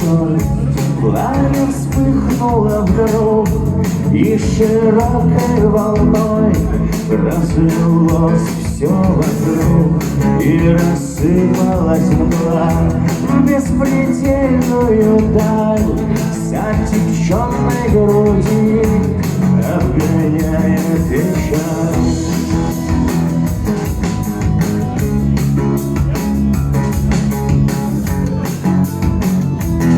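Live acoustic rock song: a man singing over an acoustic guitar.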